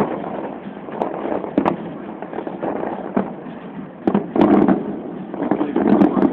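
Fireworks going off: a string of sharp bangs and crackles, growing dense and loudest a little past the middle and again near the end.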